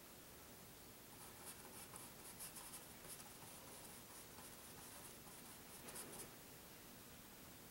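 Faint scratching of a paintbrush stroking oil paint onto a canvas: a run of short quick strokes for a couple of seconds, then a brief flurry a few seconds later.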